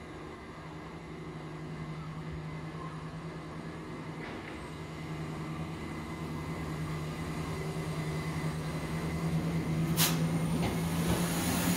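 A diesel train approaching, its steady low engine hum growing louder throughout, with one sharp click about ten seconds in.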